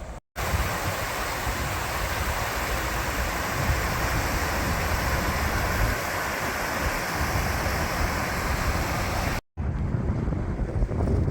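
Steady outdoor rushing noise with a low rumble, of the wind and distant-traffic kind. It cuts out to silence sharply twice, about a quarter-second in and near the end.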